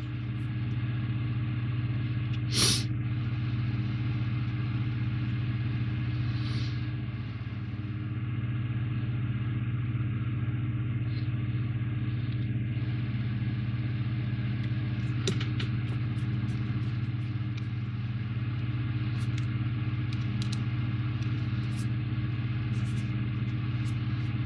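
Steady low mechanical hum with a sharp click about three seconds in and a few small ticks later: small plastic model parts being handled and pressed into place.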